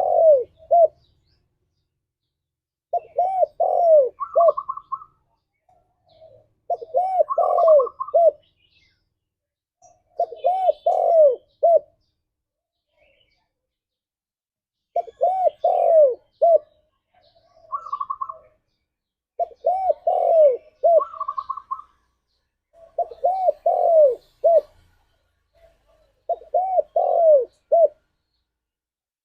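Spotted dove cooing in a repeated phrase of a few arching coos, heard about eight times at intervals of three to four seconds. Some phrases have a brief higher note.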